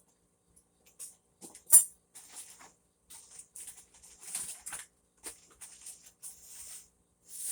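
Rustling of packaging and bags as items are unwrapped by hand, with scattered light clicks and knocks and one sharp knock a little under two seconds in.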